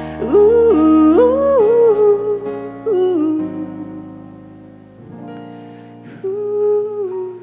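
A female singer's voice over soft sustained instrumental accompaniment, sliding between long held notes in a slow ballad melody. After about three seconds the voice drops out and the accompaniment carries on more quietly, then the voice returns with one long held note near the end.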